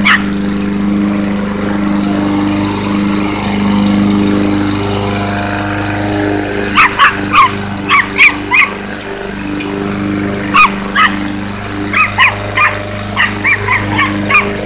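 A lawnmower runs steadily while a Chihuahua yaps at it in quick high-pitched bursts: once at the very start, a rapid string about halfway through, two more a little later, and a run of yaps near the end.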